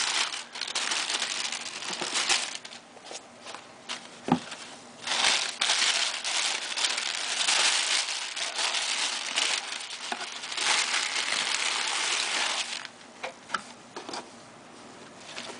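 Packaging being handled: crinkling, crumpling rustles that come and go in surges, with one sharp knock about four seconds in, quieter near the end.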